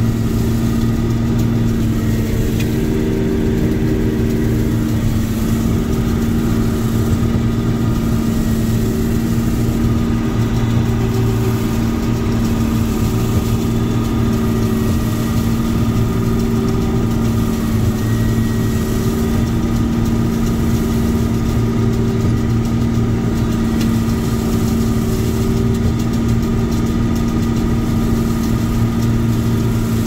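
Combine harvester running steadily while harvesting: a constant engine and machinery drone with a strong, unchanging low hum.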